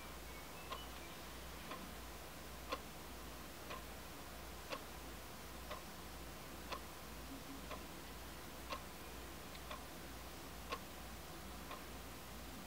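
Sharp quartz alarm clock ticking, one crisp tick a second with every other tick a little louder, over a faint low hum.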